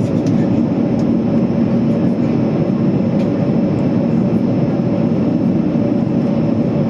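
Steady jet airliner cabin noise during the descent: the engines and the airflow make an even drone with a faint steady hum in it.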